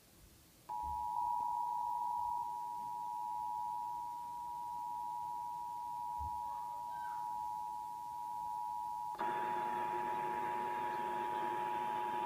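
Emergency Alert System attention signal: a steady two-tone alarm that starts about a second in and holds without a break. About nine seconds in, a buzzing noise joins underneath it.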